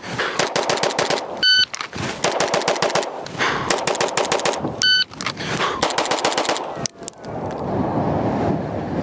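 Rapid strings of 9mm pistol shots from an Atlas Gunworks Erebus compensated handgun, fired in several quick runs with short breaks between them.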